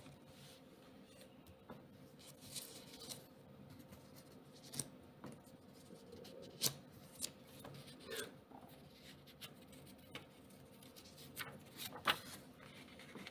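Paper notgeld banknotes being handled by fingers: faint rustling and scraping with a few scattered sharp ticks, as a note stuck to another is worked apart.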